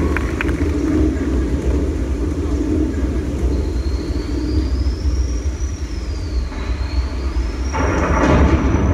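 Storm effect opening an indoor drumline show: a steady low rumble like thunder. From about a third of the way in, a thin whistling tone glides up, down and up again, and near the end a louder rush of noise swells over the rumble.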